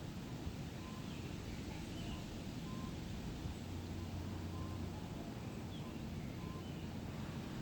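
Forest ambience: a steady low rumble of wind, with faint short bird calls repeating about every two seconds.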